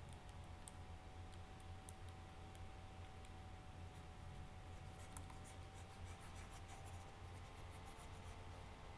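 Faint scattered clicks and taps of a pen on a drawing tablet or digitiser, over a low steady hum.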